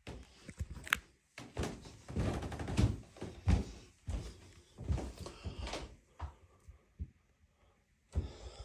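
Footsteps climbing carpeted stairs: a run of irregular soft thuds and knocks that dies away about six seconds in.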